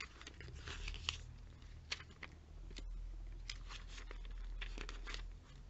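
Glossy catalogue pages being flipped by hand: a run of short paper flicks and rustles, with a low rumble through the middle.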